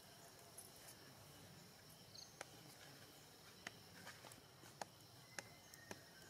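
Faint forest ambience of insects chirring steadily, with a few sharp, faint clicks scattered through the second half.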